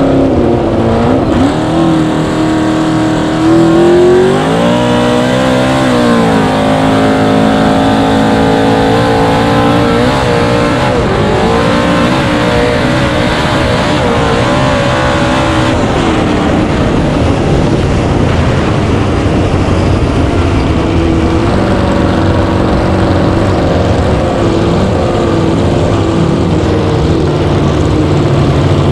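Cracker box race boat's small-block Chevy V8 running hard at full race speed. Its pitch climbs and dips in the first half, then holds steadier. A steady rush of wind and water runs underneath.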